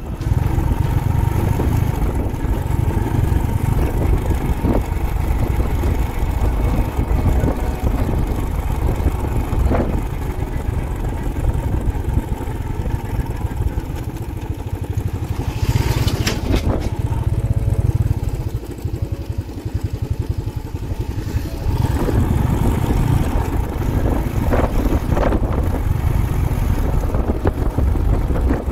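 Motorcycle running on the road, with wind buffeting the microphone, and a brief high rushing hiss about halfway through.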